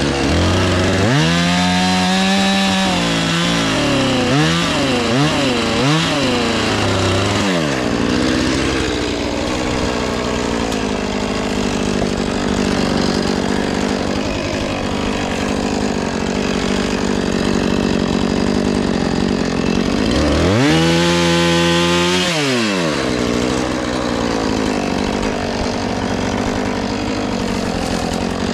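Husqvarna 450 Rancher two-stroke chainsaw revving up and down several times in quick succession, then held at high speed through a long cut into the fallen tree's wood. Near the end it drops back and revs up once more before running on steadily.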